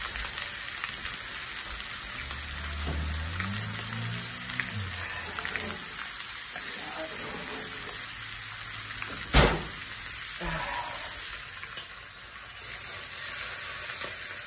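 Seasoned chicken thighs sizzling steadily in a smoking-hot Solidteknics cast iron skillet, with one sharp knock about nine seconds in as a second cast iron pan is handled.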